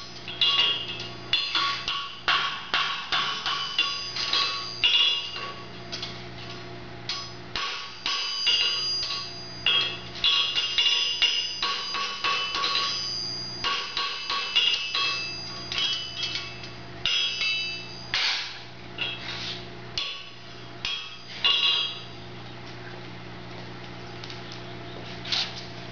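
Farrier's hammer striking a horseshoe held in tongs on an anvil, each blow ringing with a bell-like metallic tone. The blows come in quick irregular runs and mostly stop about 22 s in, with one more near the end, over a steady low hum.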